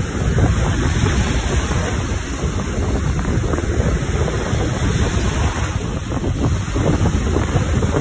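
Wind buffeting the microphone: a loud, gusting rumble with no pauses.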